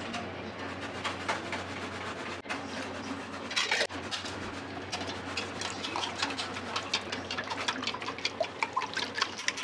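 Long wooden cooking chopsticks beating five eggs in a small aluminium saucepan for a dashimaki omelette: a rapid run of sharp clicks, several a second, against the pan. A steady low hum runs underneath.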